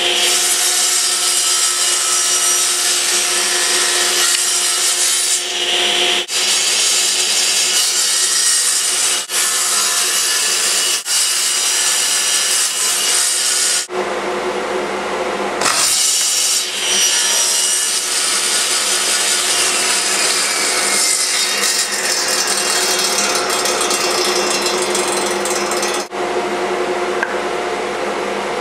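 Table saw running with a steady whine while its blade cuts strips of wood fed through a miter sled. The sound is broken by several sudden short drops.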